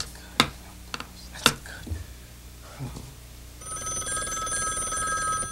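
A few sharp knocks in the first second and a half. Then, about three and a half seconds in, a landline telephone's bell starts ringing for an incoming call: one trilling ring of about two seconds that lingers as it fades.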